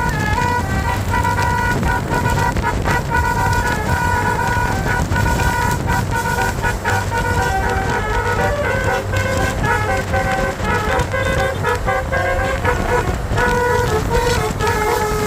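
Basuri multi-tone telolet horn on a tour bus playing a continuous tune of stepped, held notes, with lower notes joining about eight seconds in, over a low rumble.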